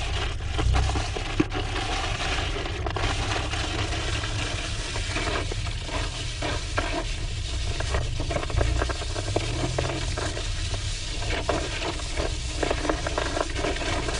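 Wind buffeting an outdoor microphone: a steady low rumble under a continuous crackle, with many short scuffs and clicks scattered through it.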